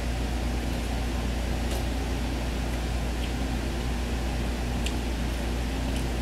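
Steady background hum with an even hiss, like a running machine in a small room, and a few faint, short ticks.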